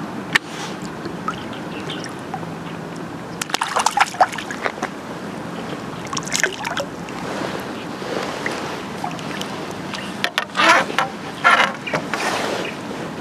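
Water sloshing and splashing in a few irregular bursts, over steady background noise.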